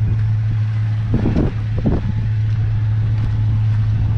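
Holden VY Commodore SS's LS1 V8 idling steadily and dead quiet, the front idler pulley noise having gone once the engine warmed up. A couple of brief louder noises come about a second in.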